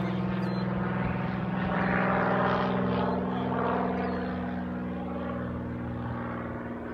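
A Swift light aircraft's piston engine and propeller pass overhead in a low flyby. The sound peaks about two seconds in, then fades steadily as the plane moves away.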